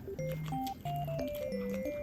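Light, cute background music: a simple keyboard melody over a bouncing bass line, with small clicks and taps scattered through it.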